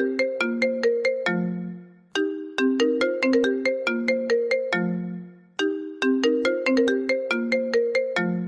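Apple iPhone ringtone playing: a quick run of struck, bell-like notes over a low note, the same short phrase repeating about every three and a half seconds.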